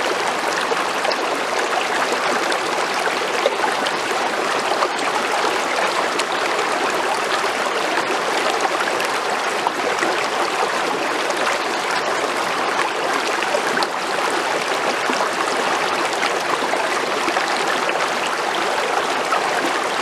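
Creek water flowing steadily: a constant, even rush with little low rumble and no breaks.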